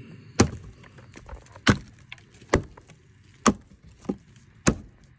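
Repeated blows of a tool cutting into a rotted log to dig out the rot: six sharp wooden strikes, one every second or so.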